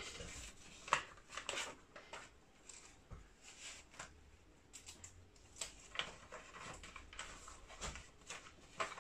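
Sheets of paper being handled and sorted on a table by gloved hands: scattered rustles and light taps, with a few sharper clicks about one, six and nine seconds in.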